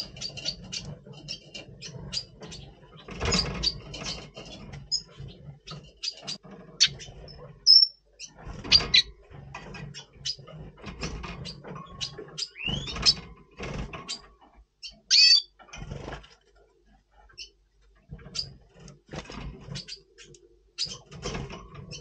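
Red siskin giving short chirping call notes, with a rising call about halfway through and a few bright notes soon after, amid many sharp clicks and scratches of movement in the cage.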